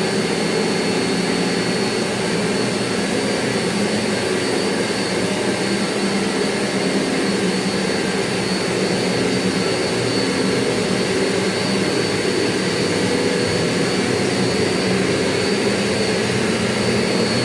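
Steady machine-shop noise of CNC machinery running, a continuous drone with a constant high-pitched whine.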